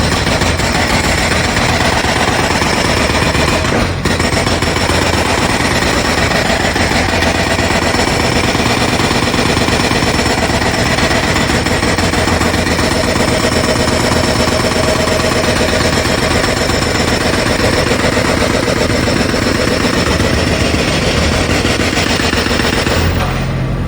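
Pneumatic jackhammer breaking up the ground in a continuous rapid hammering, loud and steady. It stops just before the end, leaving a low rumble.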